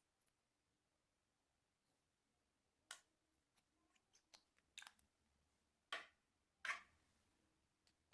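Slime being worked with blue lipstick mixed in: scattered short sticky clicks and squelches, the loudest two about six and seven seconds in.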